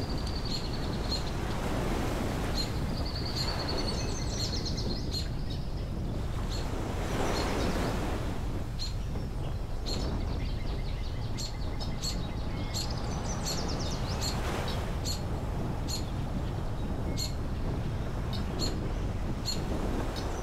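Steady low rumble of road and wind noise from a moving car, swelling briefly a few times, with birds chirping and giving short trills throughout.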